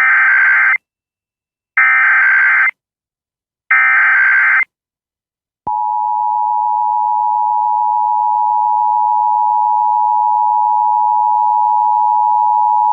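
Emergency Alert System test signal: three roughly one-second bursts of SAME digital header data about a second apart, then the steady two-tone attention signal starting about five and a half seconds in.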